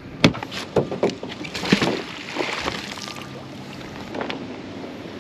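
Knocks and clunks of gear being handled in a small boat. A sharp click comes right at the start, a few more knocks follow in the first two seconds, then a short rustling wash of noise, and one last knock about four seconds in.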